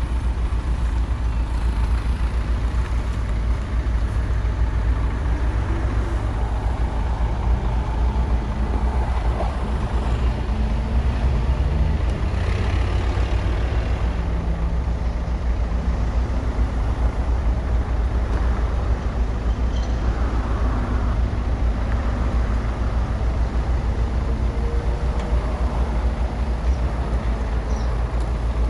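Komatsu bulldozer working, its diesel engine running with a steady deep rumble that shifts a little in pitch.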